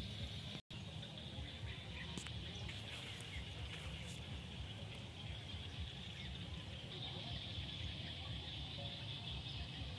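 Open-field ambience: a steady high-pitched chorus of insects, with wind buffeting the microphone as a low, uneven rumble. The sound cuts out for a split second just after the start.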